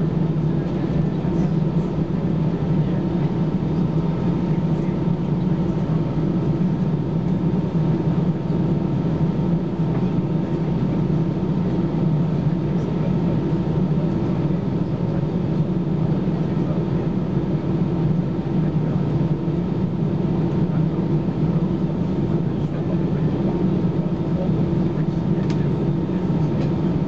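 Steady cabin drone inside an Airbus A320-214 on the ground before take-off, its CFM56-5B engines at idle with the air-conditioning hiss, a low hum and a thin steady whine running unchanged.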